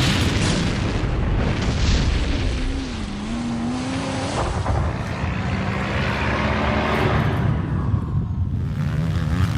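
Loud, rumbling vehicle engine noise from a car chase, made as a sound effect. A pitched engine tone wavers up and down about midway, then holds steadier toward the end.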